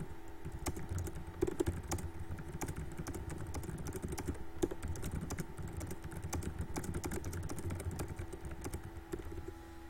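Fast touch-typing on a computer keyboard: a dense, rapid, uneven patter of key clicks, at a pace of about 130 words per minute.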